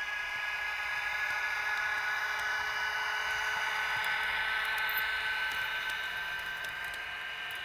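H0-scale model BR 120 electric locomotive and its Intercity coaches rolling past on the track: a steady small-motor whine with wheel and rail noise that grows louder, then eases off, with a few faint ticks near the end.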